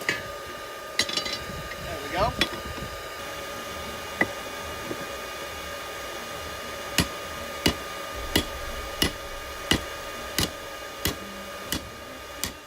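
Hammer blows ringing on hot steel rebar at an anvil while an angle is bent into it. A few scattered strikes come first, then a steady run of about nine blows, one every 0.7 seconds or so, over a steady hum.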